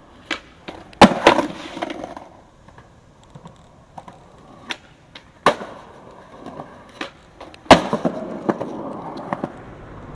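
Skateboard on concrete: several sharp claps of the board hitting the ground, the loudest about a second in, around five and a half seconds and near eight seconds, with the rumble of the wheels rolling on concrete after them.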